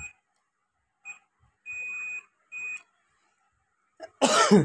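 Digital multimeter's continuity beeper sounding four times as the probes touch the amplifier's supply MOSFET legs during a short test, three brief beeps and one of about half a second. Near the end, a short, louder sound with a falling pitch.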